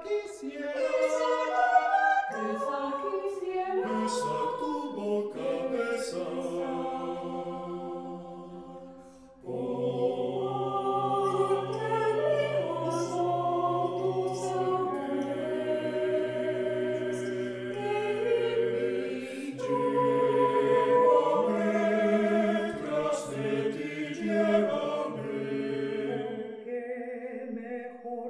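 Mixed choir of eight parts singing unaccompanied, with held chords and moving lines. The sound fades away about nine seconds in, then all the voices re-enter together, with a low bass part underneath.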